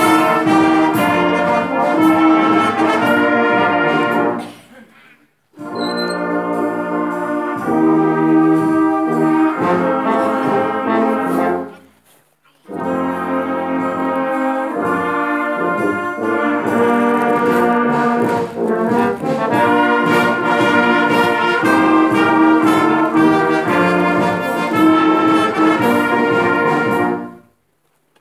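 Brass band of trumpets, trombones and tubas playing a hymn in sustained chords, breaking off into brief silences between phrases about five and twelve seconds in and just before the end.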